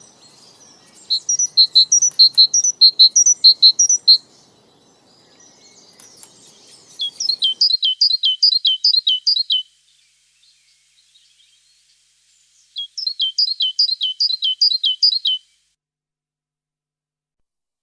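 A songbird singing three phrases of quick, high repeated notes, each phrase two to three seconds long, with pauses of a few seconds between them.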